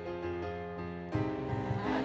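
Pop music playing: held keyboard chords, then about a second in a beat and a fuller arrangement come in and it gets louder.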